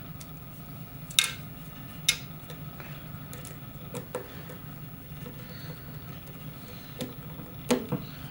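Screwdriver and screw clicking and tapping against a metal hard-drive bay as the last screw goes into a drive, a few sharp clicks, the loudest about a second in and a pair near the end, over a steady low hum.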